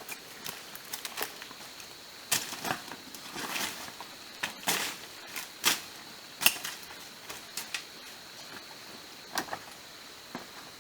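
Scattered irregular cracks, snaps and rustles of wood and debris being handled, over a steady high-pitched insect drone.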